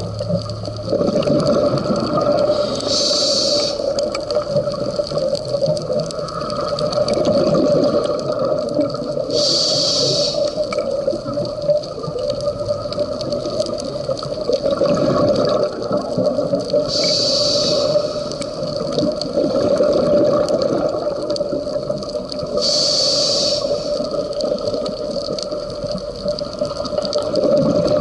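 Scuba diver breathing underwater through a regulator: a hiss with each breath about every six to seven seconds, alternating with bubbling rumbles of exhaled air, over a steady hum.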